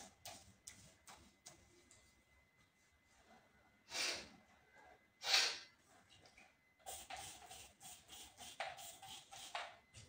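Quiet rustling and handling noises, with two louder breathy whooshes about four and five and a half seconds in, then a quick run of short rustles and light taps near the end.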